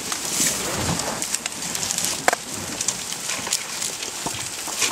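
African elephants feeding close by: leaves rustling and twigs crackling as their trunks pull down and strip branches, with one sharp snap a little over two seconds in.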